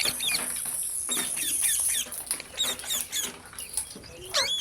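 Parrot giving short, high chirps in quick succession, several a second, with a steady high whine behind them for the first two seconds.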